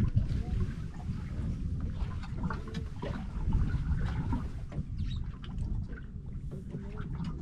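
Wind buffeting the microphone on a small boat at sea, a ragged low rumble, with water lapping at the hull and a few light clicks.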